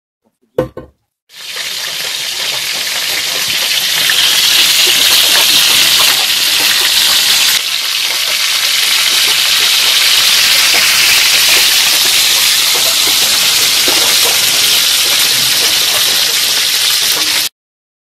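Sausages sizzling in a frying pan on a small gas burner: a loud, steady hiss with small crackles running through it. A short knock comes just before the sizzling starts.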